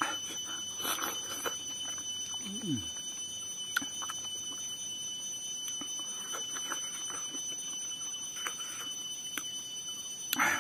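A man eating by hand: soft mouth and chewing clicks, with a short low hum that rises then falls about two and a half seconds in, over a steady high-pitched whine.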